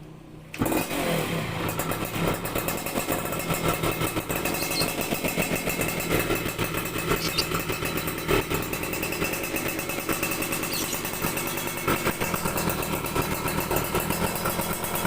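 Motorcycle engine starts about half a second in, then keeps running through an aftermarket exhaust that has been freshly repacked with new glasswool silencer packing.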